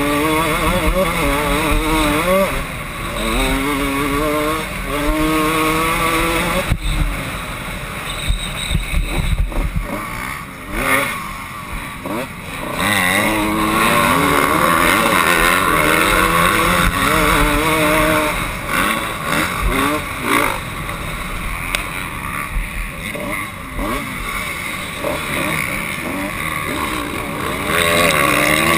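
Kawasaki KX125 two-stroke motocross engine under hard riding, heard from onboard. Its pitch climbs in several sweeps as it shifts up through the gears, goes rough and uneven mid-way as the throttle is chopped and reopened, then holds high at full throttle before rising and falling again.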